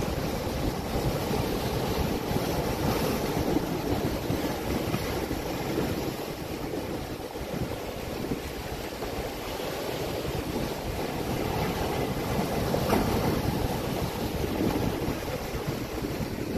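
Surf breaking and washing over and around black volcanic rocks: a steady rush of water that swells and eases slowly.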